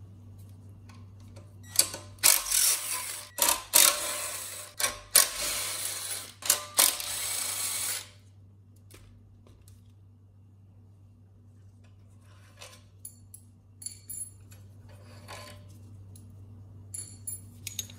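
Cordless power driver spinning out the long through-bolts that hold a generator's stator and end housing to the engine, in several short runs and then one longer run through the first half. After that come light metallic clicks and clinks as the loosened bolts are handled.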